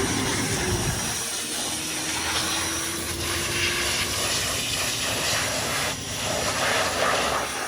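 SSR 125 dirt bike engine running on its newly fitted carburetor, with a steady hiss over it and a low engine note that fades about a second in.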